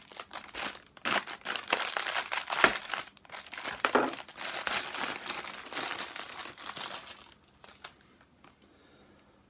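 Clear plastic parts bag crinkling as it is handled and opened to get out a replacement starter-motor brush set; the crinkling stops about seven seconds in.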